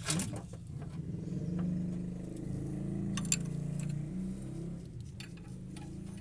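A motor running with a steady low hum, swelling a little in the middle, with a few light metallic clinks about three seconds in.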